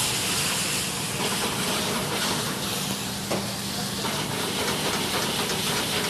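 Plum wine sizzling in a hot pan, a steady hiss of liquid boiling hard as the glaze starts.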